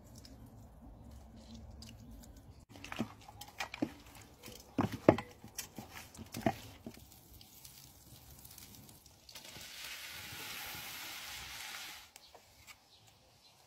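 Pieces of marinated cod tossed by hand in a stainless steel bowl: a run of sharp knocks and wet slaps against the metal, the loudest about five seconds in. Later, shrimp sizzling in hot oil in a cast-iron pan, a steady hiss for about two and a half seconds that cuts off suddenly.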